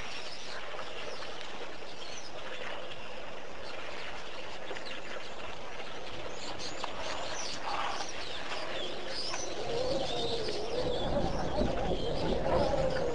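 Wild birds chirping with short, quick calls throughout, and a dove cooing during the last few seconds.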